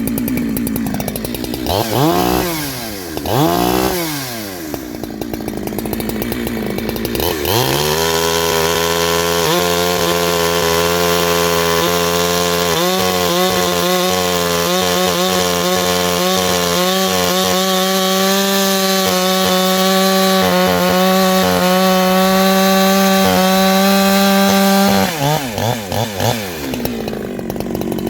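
Two-stroke chainsaw fitted with a modified shotgun-style muffler: it idles, is blipped twice, then is run up to full revs and held there steadily for about seventeen seconds before dropping back to a lumpy idle near the end. The owner calls its note way fat.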